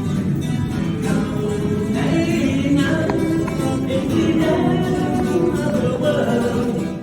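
Background music with guitar and a singing voice, played loud; it cuts off abruptly at the end.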